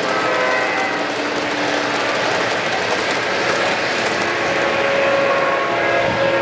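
O-scale model freight train cars rolling past on three-rail track, a steady rolling clatter of the wheels. Thin steady tones come and go over it, with a longer one starting about two-thirds of the way through.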